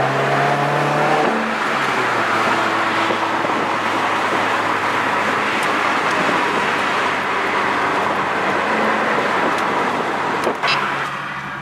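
2015 Subaru WRX's turbocharged flat-four with a Nameless turboback exhaust, driving on the road: a steady engine note at first, then running on under steady road and exhaust noise. A brief sharp click comes near the end.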